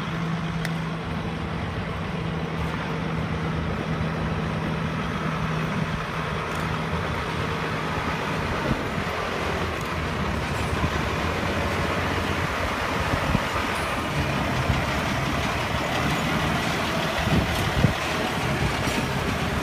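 Diesel engine of a hi-rail semi truck running as it slowly tows a light-rail car along the tracks past the listener. It begins as a steady low hum, then turns into rougher, noisier engine and rolling sound as the truck comes close.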